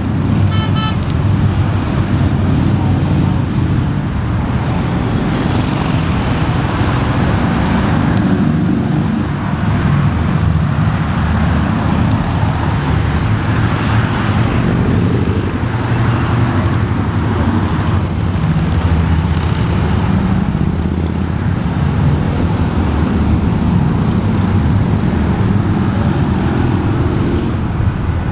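Highway traffic passing below: a steady stream of motorcycle engines and tyre noise, with a heavy low rumble throughout and swells that rise and fade every few seconds as groups of riders go by.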